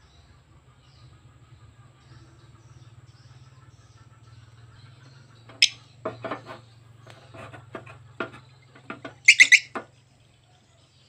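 Recorded swiftlet call (a 'suara panggil' lure sound for swiftlet houses) played through a pair of horn tweeters from a small amplifier. After a low steady hum, a run of sharp chirps and clicks starts about halfway in, with the loudest shrill burst near the end.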